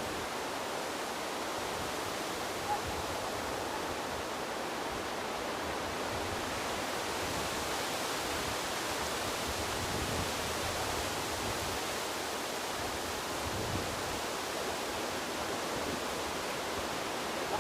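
Steady rushing of sea surf on a beach, with one brief tick about three seconds in.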